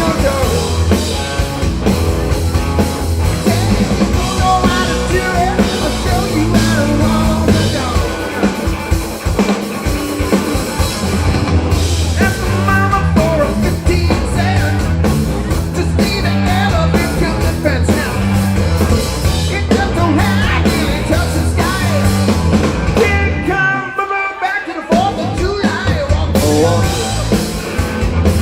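Rock song with singing, electric guitar and drums.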